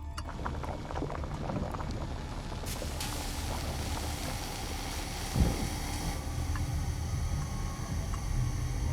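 Garbage disposal running with a steady grinding rumble, a few sharp clicks in the first two seconds and a heavy thump about five seconds in.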